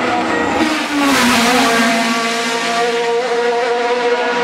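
Single-seater formula race car's engine at high revs passing close by: its pitch drops about a second in with a loud rush, then it runs on steadily as the car climbs away.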